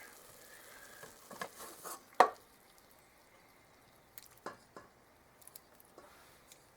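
Cookware handled while cooked ground beef is drained through a strainer: one sharp loud knock about two seconds in, with scattered lighter clicks and taps before and after.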